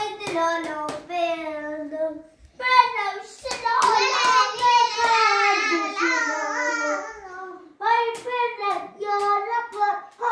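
A young girl singing a song in a high voice, loudest in the middle, with short sharp claps at a steady beat near the start and again near the end.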